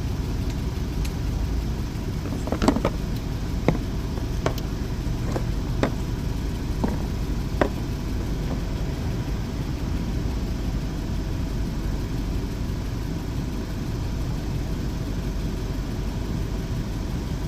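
Jeep Wrangler engine idling steadily, with about six sharp clicks spaced about a second apart in the first half.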